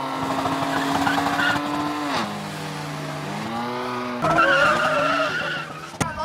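Car engines held at high revs, dropping about two seconds in and climbing again, then a louder burst of tyre squeal about four seconds in, typical of cars launching off a drag-strip start line.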